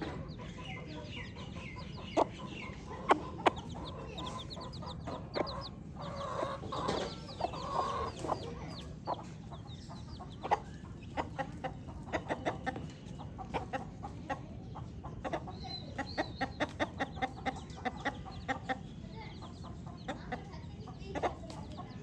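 Baby chicks peeping, many short high falling chirps, with lower chicken clucking mixed in, a few sharp knocks early on and a fast run of clicks in the middle, over a steady low hum.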